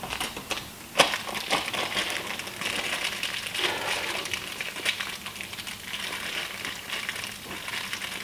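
Electrical wire and hand tools being worked at a breaker panel: a run of small clicks, scrapes and rustles, with one sharp click about a second in.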